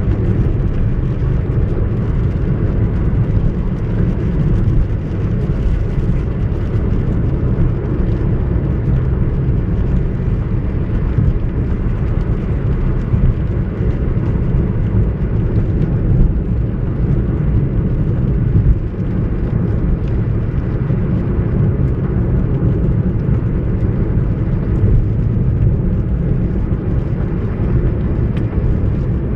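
Steady engine and road noise heard inside a moving car's cabin, its tyres running on a wet road surface.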